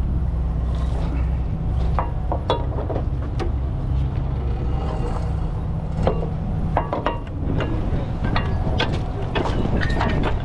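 Heavy diesel truck engine idling steadily, with scattered sharp metal clinks and clanks of chains and rigging being handled.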